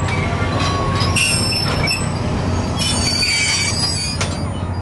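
Passenger coaches rolling past on steel rails with a steady low rumble, and high-pitched metallic wheel squeal twice: about a second in and again near three seconds in. A sharp click follows near the end.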